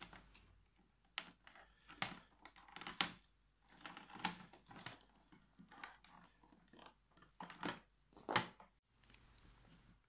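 Mains cord being unwound from the cord hooks of a 1975 Hoover PowerDrive U6033 upright vacuum cleaner: the cable rustles and slides, with irregular sharp clicks and knocks against the plastic handle and casing.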